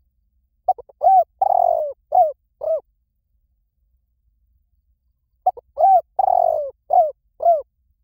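Spotted dove cooing: two matching phrases a few seconds apart. Each has a couple of short notes, then a longer drawn-out coo, then two more coos.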